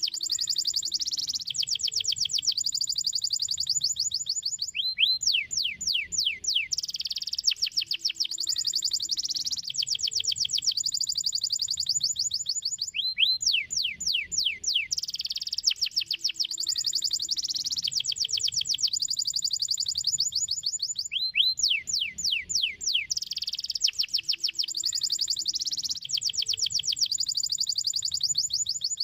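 Domestic canary singing a fast, continuous song of rapid trills made of quick falling notes, the same phrase coming round about every eight seconds.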